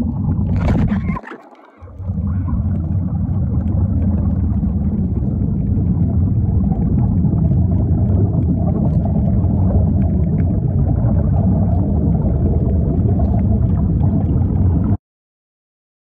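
Underwater recording: a steady, muffled low rumble and gurgle of water around a submerged phone. It dips briefly about a second in and cuts off abruptly near the end.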